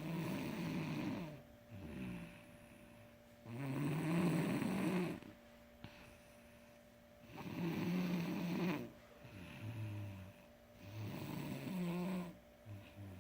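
A sleeping person snoring: four loud rasping snores, one about every four seconds, with softer breaths between them.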